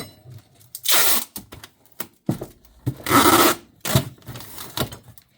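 Tape pulled off the roll in several rasping strips and pressed onto a cardboard box, the longest pull about three seconds in, with cardboard rubbing and knocking in between.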